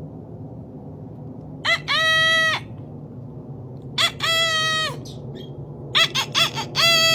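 Rooster crowing three times, roughly two seconds apart; each crow is a short opening note followed by a long held note that drops away at the end. The third crow starts with a few short choppy notes before its long note.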